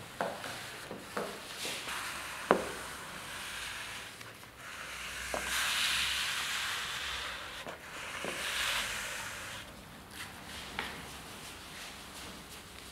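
Wads of tarlatan-like cloth rubbing and wiping ink across an inked copper printing plate: a scratchy scrubbing swish that swells in the middle. Light knocks are scattered through it, the sharpest about two and a half seconds in.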